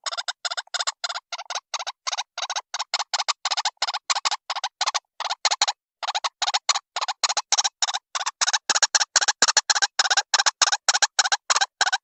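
White-breasted waterhen call recording played as a trapping lure: a rapid string of short repeated call notes, about six a second, with a brief pause near the middle.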